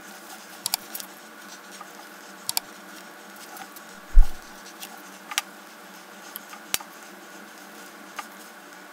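A small brush dabbing and scraping cold bluing solution onto a steel fly cutter body, with scattered light clicks and taps, over a steady hum. One loud low thump about four seconds in.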